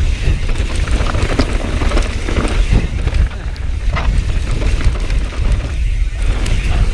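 Gusty wind buffeting the action camera's microphone over the rolling and rattling of a mountain bike descending a rocky trail, with scattered sharp clicks and knocks from the bike.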